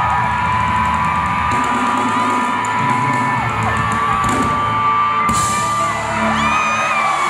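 A crowd of fans screaming and cheering in long high-pitched held screams over pop music from the concert sound system. The music's bass thins out after the first second or so.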